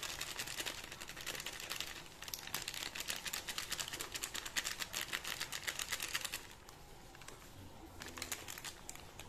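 Plastic seasoning sachet crinkling in a fast run of small clicks as it is squeezed and shaken to pour out powdered stock. It stops about six and a half seconds in, with a few more crinkles near the end.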